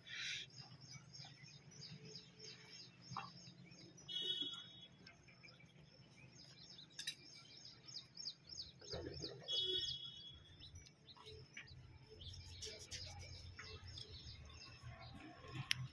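Small birds chirping, a quick run of short high calls that goes on throughout, with two brief buzzier calls about four and ten seconds in.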